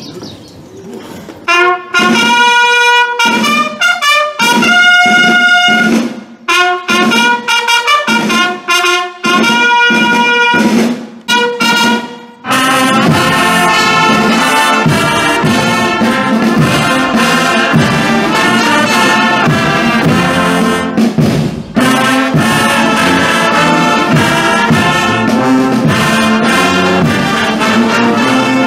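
Brass band playing: first a lone brass call of short, separate held notes, then the full band of trumpets, trombones, horns and sousaphones comes in together about twelve seconds in and plays on.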